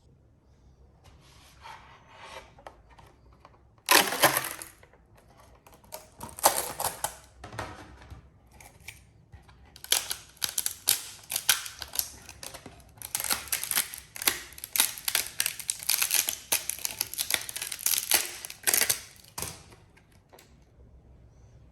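Irregular clicks, knocks and short scraping noises of hard objects being handled and worked by hand, starting with a sudden loud scrape about four seconds in and coming thick and fast through the middle before dying away near the end.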